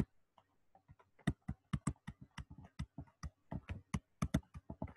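Stylus tip tapping and clicking on a pen tablet while handwriting. There are a few faint clicks at first, then from about a second in a quick, irregular run of sharp clicks, about six a second.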